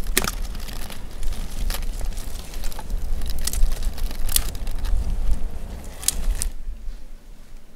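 A small campfire of dry pine needles and twigs catching and burning, crackling over a steady low rumble, with sharp pops every second or so. The noise drops away abruptly near the end.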